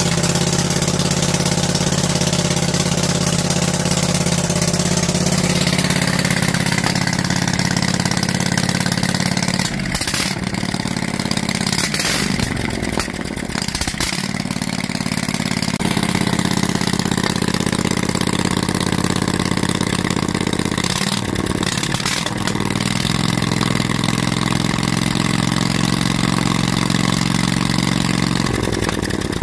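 Briggs & Stratton Vanguard 18 hp V-twin engine running through open exhaust headers, its speed wavering and dipping several times around the middle before it steadies. It runs, but the owner thinks the idle jet is most likely not keeping up because of the straight-through open headers.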